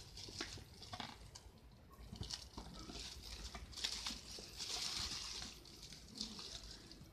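Clear plastic wrapping crinkling and rustling as a boxed action camera is picked up and turned over, with scattered light clicks and a denser burst of crackle about four seconds in.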